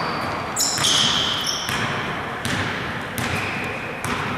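Basketball game on an indoor court: the ball bouncing and sneakers squeaking, with short high squeaks about a second in and again near three seconds, over a steady hubbub of the gym.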